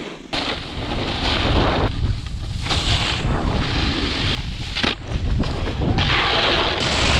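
Wind buffeting an action camera's microphone while a snowboard slides and scrapes over packed snow, a loud, steady rush that changes character abruptly several times.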